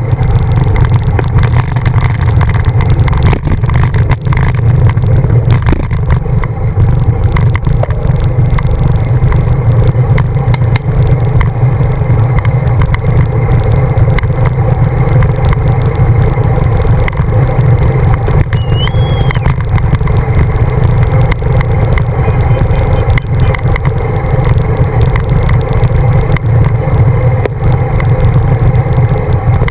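Wind rushing over the microphone of a camera riding on a road bicycle at speed: a steady, loud low rumble with a hissing haze above it.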